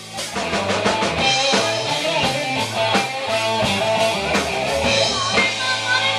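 Live rock band playing an instrumental passage: electric guitar over a busy drum kit with frequent snare and cymbal hits, with no singing.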